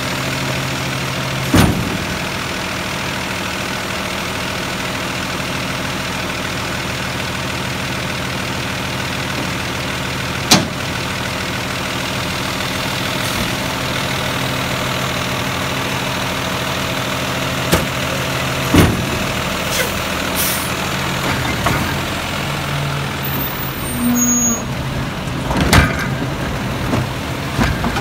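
Peterbilt 320 garbage truck's diesel engine idling steadily, with a handful of sharp knocks and bangs from carts and the loading gear, the loudest about ten seconds in and several more close together in the last third.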